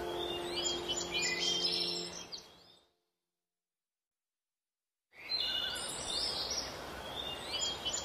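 Birds chirping over a faint hiss, with sustained low tones underneath that fade out between two and three seconds in. The sound then cuts to complete silence for about two seconds before the chirping and hiss return.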